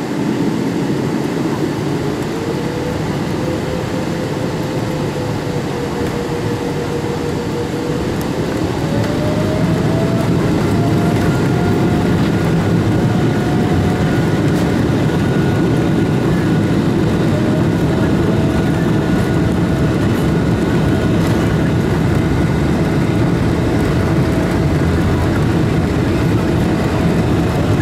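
Cabin noise of a Boeing 777-300ER on the ground, heard from a window seat over the wing: a steady rumble and whine from its GE90-115B engines. About eight seconds in, the whine rises in pitch and the noise grows louder as engine thrust is increased, then holds steady.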